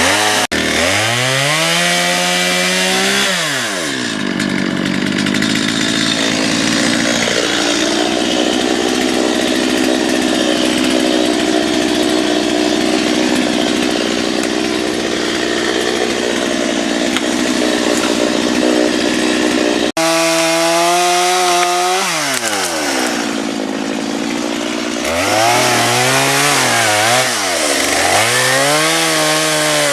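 Stihl MS 250 two-stroke chainsaw revving up and cutting into wood, held at a steady, lower pitch under load for long stretches. Near the end the throttle is blipped up and down several times.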